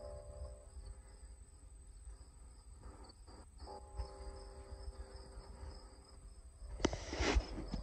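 Insects trilling steadily at a high pitch. A buzzing hum fades in about four seconds in, and there is a brief louder rustling burst near the end.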